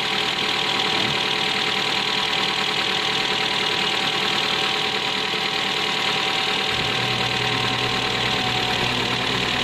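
Car engine running at a raised idle of about 1,500 rpm, with the electric radiator fan running nonstop, which the mechanic traces to the AC pressure switch. The sound stays steady, and a low hum joins about two-thirds of the way through.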